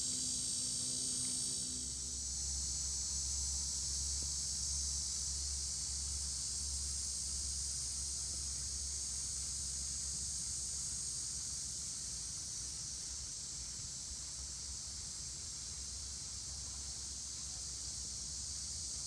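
Steady, high-pitched chorus of insects, continuous and unbroken, with a low steady rumble underneath.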